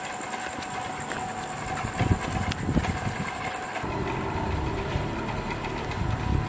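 Radio-controlled WPL D12 mini truck driving: its small electric motor and gear drivetrain whirring while the tyres roll over rough pavement. After a change about four seconds in, the sound becomes a steadier low rumble.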